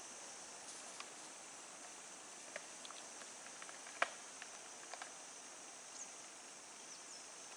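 Faint outdoor ambience: a steady high insect drone with scattered soft clicks and taps, the sharpest about four seconds in.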